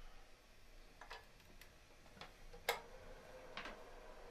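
A few sparse light clicks and taps as the Braiins BMM-100 mini miner is handled and its power cable plugged in, the loudest about two-thirds of the way through.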